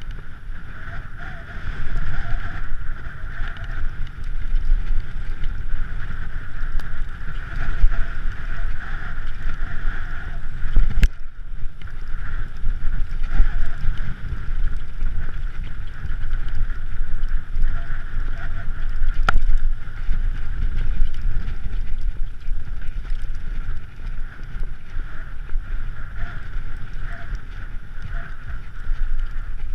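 Wind buffeting the microphone of a moving camera, with a steady low rumble from travel over a rough rocky track. A sharp knock about 11 seconds in and another around 19 seconds.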